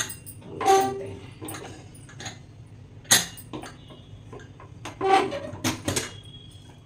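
A stainless-steel pressure cooker being opened: its weight is lifted and the lid twisted free of the pot. There are sharp metal clicks and knocks, the loudest about three seconds in, and two short squeaks of steel rubbing on steel.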